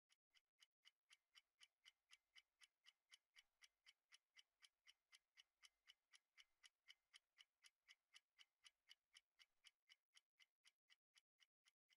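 Near silence with a faint, even ticking, about four ticks a second.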